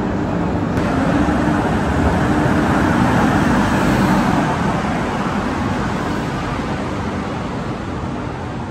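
Gatimaan Express arriving behind its electric locomotive: a steady rumble of wheels on rail as the coaches roll past close by, with a low hum at first. It swells to its loudest about three to four seconds in, then eases off.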